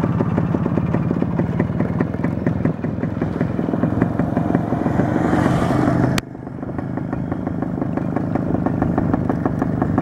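Motorcycle engine running steadily under way, heard from the rider's seat. About six seconds in there is a sharp click, the sound drops quieter and then builds back up.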